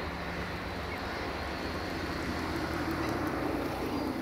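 Diesel locomotive engine running with a steady low hum, swelling in the second half.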